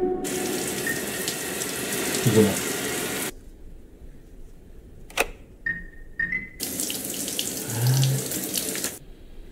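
Shower water spraying steadily. It breaks off for about three seconds midway, then runs again.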